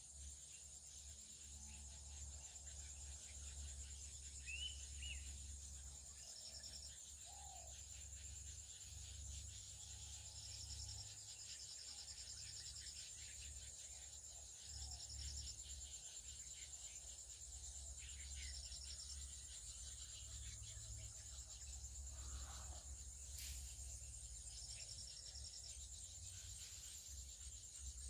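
Insect chorus: a steady high shrill with short trills repeating every few seconds, and a few scattered bird chirps. A low rumble runs underneath.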